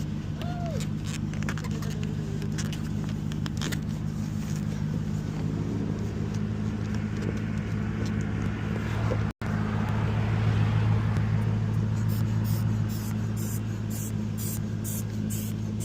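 Vehicle engine idling steadily, with scattered light clicks and scrapes over it and a fast, even high ticking in the last few seconds.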